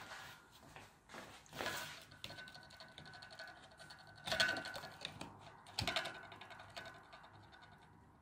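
Small clicks and scrapes of a plastic 6 V lantern battery casing being handled as its cells are worked loose, with a few louder clicks; some cells are stuck by crusty corrosion.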